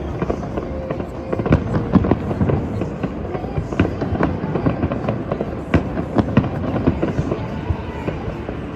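Fireworks exploding in rapid, irregular succession: many overlapping bangs and crackles over a continuous low rumble.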